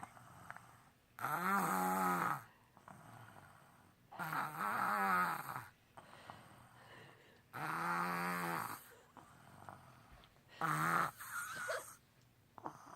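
A four-year-old girl snoring: four pitched snores about three seconds apart, each lasting about a second, the last one shorter.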